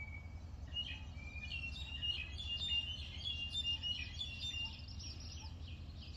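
Birds singing: a run of clear whistled notes, then from about four seconds in, quick repeated chirps, over a low steady rumble.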